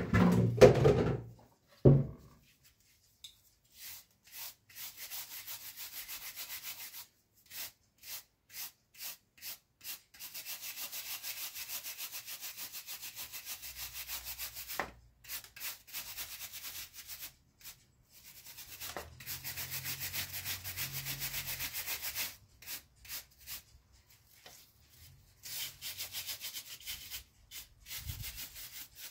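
A few knocks at the start as the rusty scabbard is set down on the wooden workbench. Then a hand wire brush scrubs rust off the steel bayonet scabbard in quick back-and-forth strokes, in spells of a few seconds broken by short pauses.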